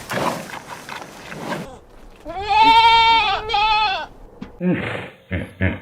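One long, wavering bleat from a farm animal, lasting under two seconds, about two seconds in. Near the end come short grunts, the start of a pig's grunting.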